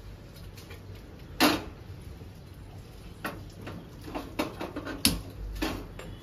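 Cookware clattering as pots are moved and set down: a loud knock about a second and a half in, then a run of lighter clinks and a second sharp knock about five seconds in.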